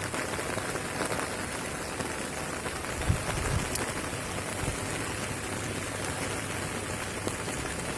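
Rain falling steadily, with a couple of brief low thumps about three seconds in.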